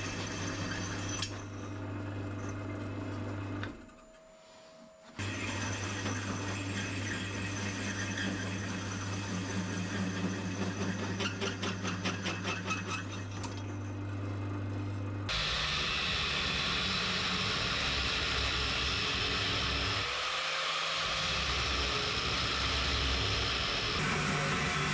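Power tools running during metal fabrication, in short clips that cut abruptly from one to the next, with a brief quiet gap about four seconds in. A fast rattling pattern runs for a few seconds in the middle.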